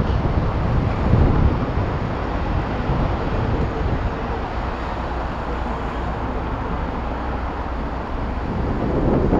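Wind buffeting the microphone of a camera mounted on the outside of a moving vehicle, over a steady rumble of road and traffic noise.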